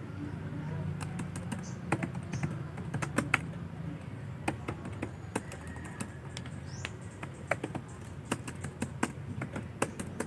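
Typing on a keyboard: irregular key clicks at an uneven pace, with a low hum under the first few seconds.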